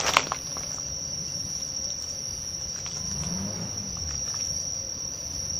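Crickets singing in a steady, unbroken high-pitched chorus.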